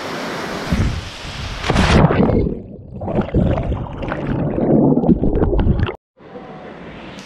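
Rushing water of a waterfall, then about four seconds of loud, muffled, uneven gurgling and splashing with the high end gone, then an abrupt cut to a quieter, steady rush of water.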